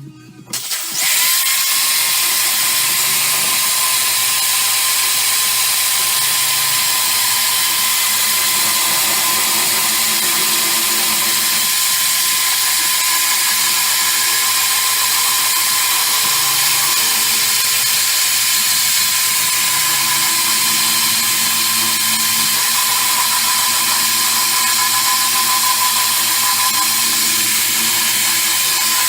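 Power tool spinning a wire brush against the Mini's steel inner sill, a steady whine with a scouring hiss, stripping it back to bare metal. It starts up about a second in and runs on at an even level.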